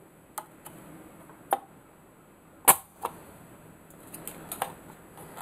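Irregular light clicks and taps as a soldering iron works at a capacitor's leads on a metal chassis during desoldering, with one louder sharp click about halfway through and a quick run of ticks near the end.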